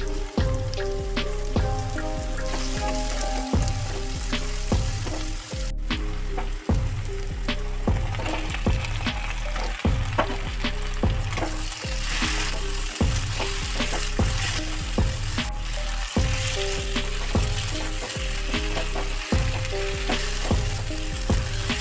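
Onions and marinated chicken sizzling in hot oil in a nonstick wok, with a wooden spatula clicking and scraping as it stirs. The sizzle grows brighter about halfway through.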